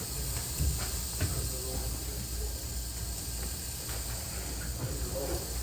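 Steady hiss and low hum of a church room picked up by the recording, with a few soft knocks and faint voices near the end.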